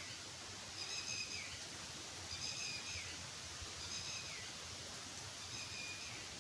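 An animal call repeating about every second and a half, a short high pitched note that drops away at the end, four times over a steady outdoor hiss.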